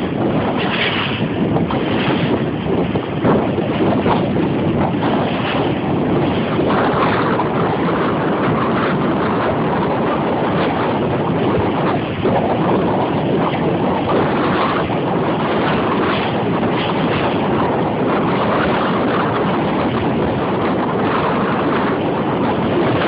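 Wind buffeting the microphone over the steady rush of a small open boat under way across choppy sea, with water noise against the hull.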